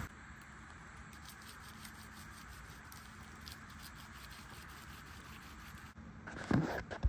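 Faint rustling with scattered light ticks, then louder rustling and a couple of knocks about six seconds in.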